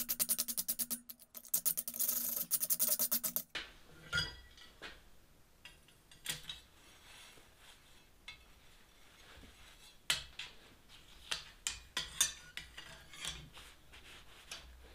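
Fast back-and-forth scrubbing on the forged steel spoon for the first three or four seconds, then quieter rubbing of an oily rag over the hot spoon held in tongs on the anvil, with scattered light metal clinks.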